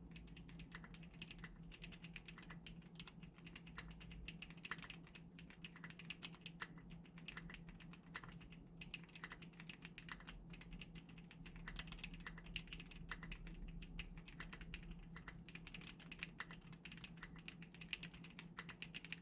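Fast continuous typing on a custom gasket-mounted, stacked-acrylic 75% mechanical keyboard with Gray Wood V2 switches, foam-dampened: a dense, irregular run of key clacks with short lulls.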